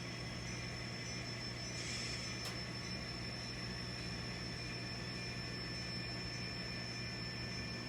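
N scale model train running slowly on the layout track: a steady low hum with a thin high whine, and a brief hiss ending in a single sharp click about two and a half seconds in.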